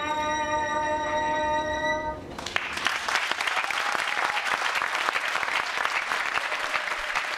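Live music ending on a long held instrumental note, which stops about two seconds in, followed by an audience clapping and applauding.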